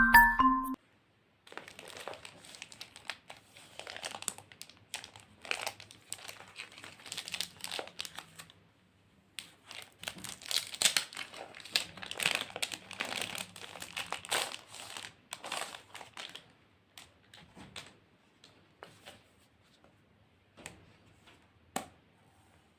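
Packaging crinkling and rustling as a new journal is unwrapped by hand, with some tearing. It thins out to a few scattered rustles and a click near the end.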